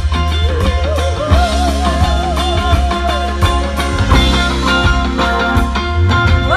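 Rock music playing loudly, with a heavy bass line and a regular drum beat. A wavering melody line comes in about half a second in and runs to about three seconds.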